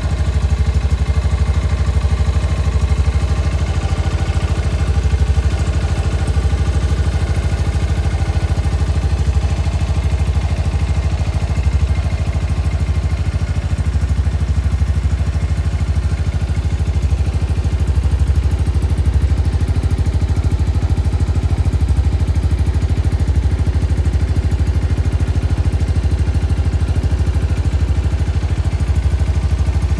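Shelby Renz 200 motorcycle engine, a Chinese-built Kawasaki Ninja replica, idling steadily at an even, unchanging speed.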